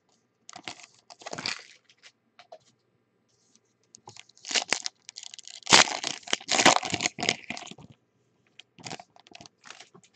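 Foil trading-card pack wrappers crinkling and crumpling in the hands, in irregular bursts, loudest about halfway through.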